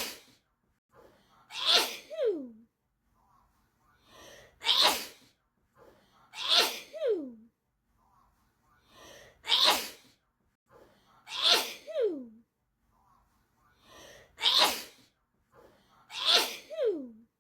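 A person's sneezing fit played as a loop: the same pair of sharp sneezes repeats about every five seconds, eight sneezes in all, with a faint intake of breath before each pair and a short voice sliding down in pitch after the second sneeze.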